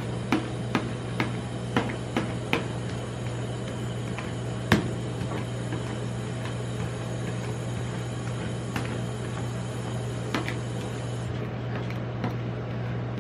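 Metal spatula tapping and scraping on a stainless-steel rolled-ice-cream cold plate while spreading the ice cream and scoring it into strips: a quick run of about six taps in the first few seconds, a sharper knock about five seconds in, then a few scattered taps, over a steady low hum.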